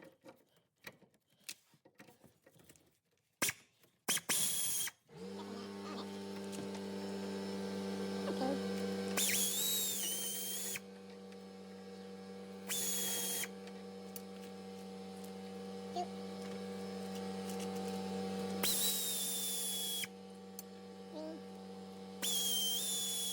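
A power tool whirs in four short bursts with a high whine, backing out the bolts on the back of a rear wheel-bearing hub. A few metallic clanks come before, and a steady low hum runs under the bursts from about five seconds in.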